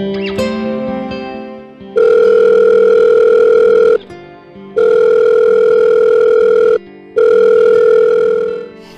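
Telephone ringback tone of an outgoing call: a loud steady tone in three long pulses of about two seconds each with short gaps between them. Soft guitar music fades out underneath in the first two seconds.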